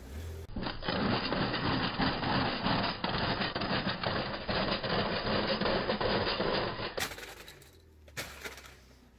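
Plastic Paw Patrol Marshall toy cracking and crunching under a car tyre: a dense run of cracks and creaks for about six seconds that cuts off abruptly, then a few scattered clicks.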